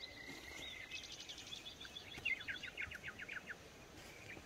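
A songbird singing: a thin high note, then a fast trill about a second in, then a run of about ten quick down-slurred notes.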